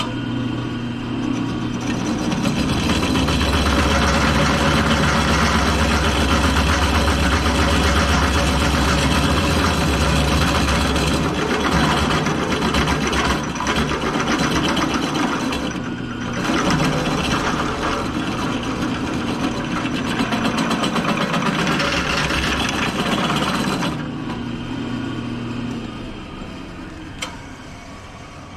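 Drill press running with its bit boring into an aluminum tube: a steady motor hum under a dense cutting noise that dips briefly twice midway, then winds down near the end. A single click follows shortly after.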